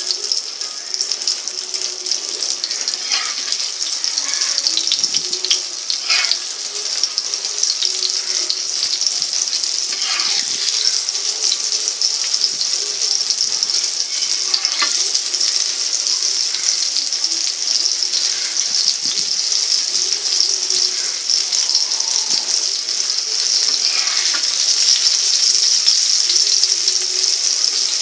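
Rice-flour-coated pomfret shallow-frying in hot oil in a tawa: a steady sizzle with scattered crackles and pops.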